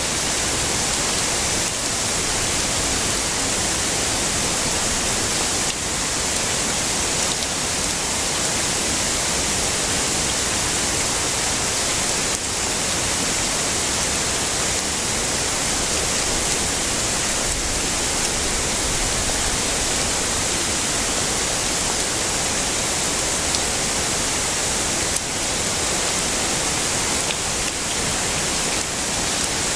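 Heavy rain falling steadily, a dense even hiss with an occasional faint tap of a drop.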